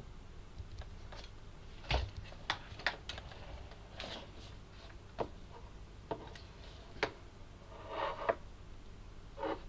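A scattering of light clicks and taps at irregular intervals, about ten in all, the sharpest about two seconds in and a quick cluster near the end.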